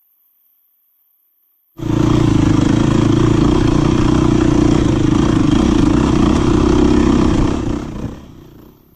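Beta 350 enduro motorcycle's four-stroke single-cylinder engine running at a steady speed under way, cutting in suddenly about two seconds in and fading out near the end.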